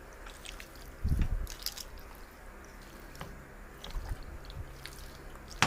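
Raw chicken pieces being mixed with spices, sauces and corn flour in a bowl, making wet squelching and small clicks, with a soft thump about a second in and a sharp click near the end.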